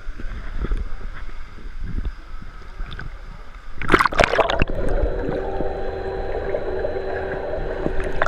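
Water lapping around a kayak on an indoor pool, then a splash about four seconds in as the kayak capsizes. The sound then turns muffled and gurgling, with a steady hum heard from under the water as the bow-mounted action camera goes under.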